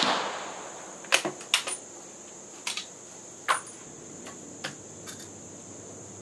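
The report of a Swedish M38 Mauser rifle shot dying away in the first second, then a string of short sharp metallic clicks as the bolt action is worked. Crickets chirp steadily throughout.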